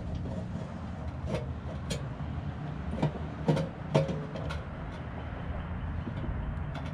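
Scattered light clicks and knocks as a motorcycle fuel pump assembly is handled and worked out of its fuel tank, over a steady low background rumble.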